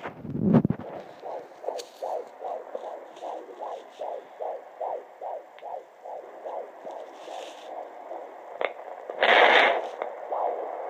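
Fetal heartbeat through a handheld fetal doppler's speaker at 19 weeks 5 days: a fast, even whooshing pulse of about two and a half beats a second. A low thump about half a second in and a loud rushing burst near the end break into it.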